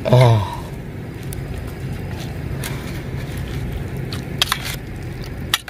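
A steady low motor-like rumble, with a few sharp clinks of a metal spoon against a steel soup bowl near the end.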